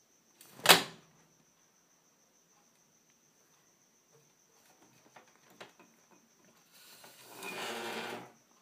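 A single sharp knock about a second in. Then a few faint ticks and, near the end, a longer rustling scrape of a kitten's paws on a leather cushion. A thin high-pitched chirring runs steadily underneath.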